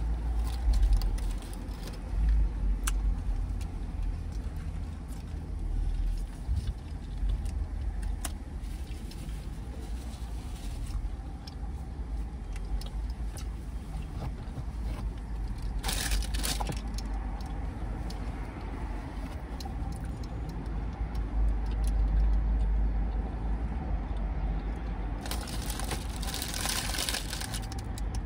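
Eating sounds, with chewing and bursts of rustling about halfway through and again near the end, over a steady low rumble.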